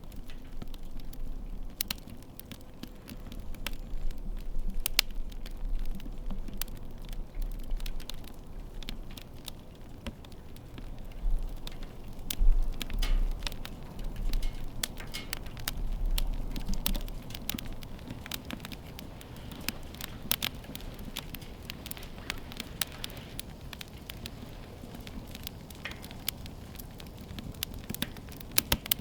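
Wood fire crackling and popping, with many sharp, irregular snaps over a low steady rush.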